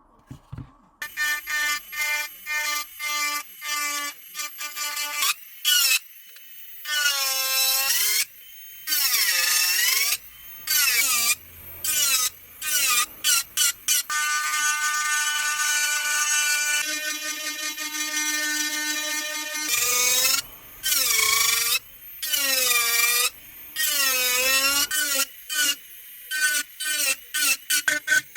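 Handheld rotary tool running in short on-off bursts, its pitch dipping and recovering each time it is pressed into the plastic grip while texturing it by hand.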